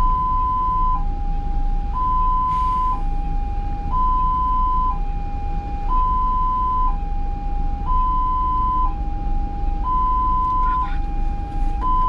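Ambulance two-tone siren switching evenly between a higher and a lower note, each held about a second, over the low rumble of the vehicle on the road.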